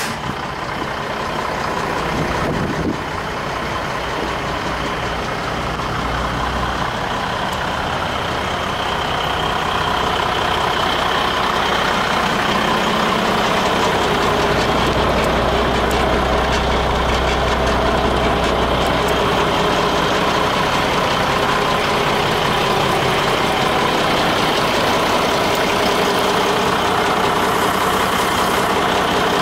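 Renault Midliner M150 fire truck's diesel engine idling steadily.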